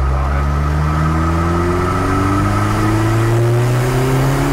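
Rear-mounted 1.9-litre Volvo four-cylinder 16-valve turbo engine of a Hillman Imp pulling under acceleration, its pitch rising steadily as the revs climb in one gear, heard from inside the cabin.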